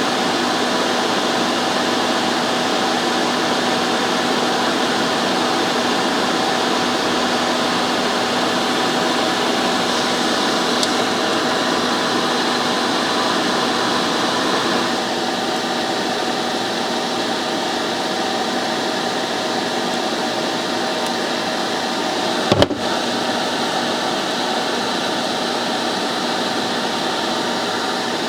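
A Pelonis Safety Furnace 1500 W space heater's fan running steadily with a hum, drawing air in through the heater. The level drops slightly about halfway through, and there is one sharp click a few seconds before the end.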